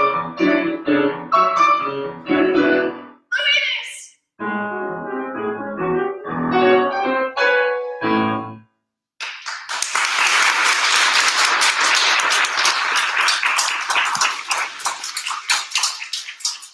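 A woman singing with piano accompaniment, the song closing on held chords that stop about eight and a half seconds in. After a short pause the audience applauds for about seven seconds.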